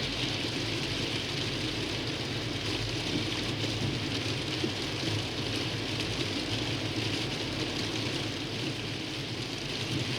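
Steady road noise of a car driving on a snow-covered highway, heard from inside: the engine running and the tyres hissing through slush.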